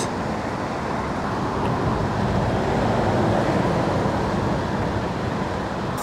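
Road traffic noise: a steady rush of passing vehicles that swells a little around the middle and eases off again.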